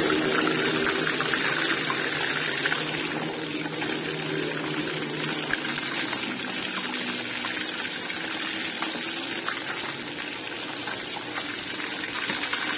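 Whole fish deep-frying in hot oil in a steel wok over a raised flame: steady sizzling and crackling of the bubbling oil. A low hum fades out in the first few seconds.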